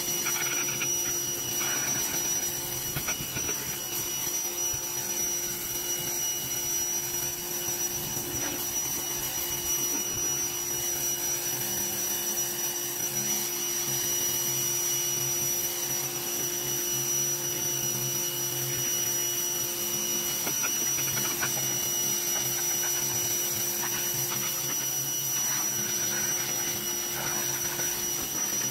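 Greenworks pressure washer running steadily, its motor and pump giving a constant whine under the hiss of the high-pressure water jet spraying the truck's side panels.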